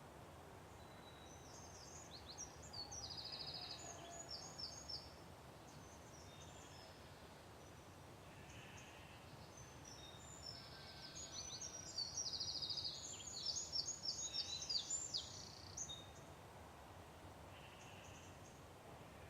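Songbird singing in two bursts of quick, high chirps and trills, the second starting about ten seconds in and louder, over a faint steady background hiss.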